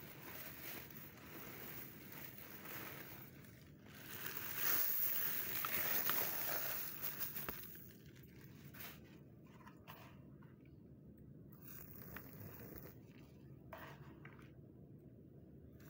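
Dry, dusty sand being crumbled and crushed by hand in a bucket, a dry crunching rustle. It grows loudest for a few seconds near the middle, then drops to soft, scattered crunches.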